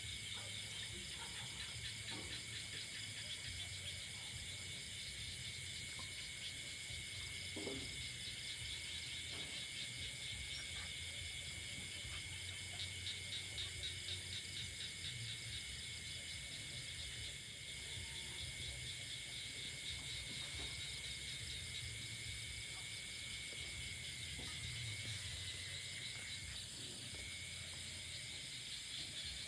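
Night insect chorus in the countryside: crickets and other insects trilling steadily in many overlapping high, rapidly pulsing notes, with one thinner, lower whistle-like trill running under them.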